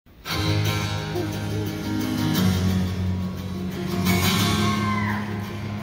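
Live band playing a song's instrumental intro on acoustic and electric guitars. A held high note bends downward about four to five seconds in.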